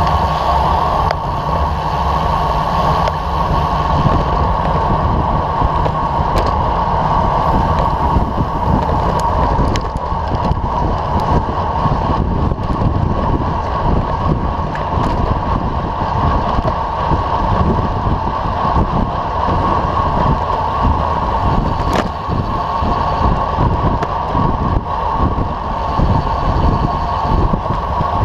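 Steady rush of wind on a bike-mounted camera's microphone and road-bike tyres rolling on asphalt at racing speed, with a few faint clicks.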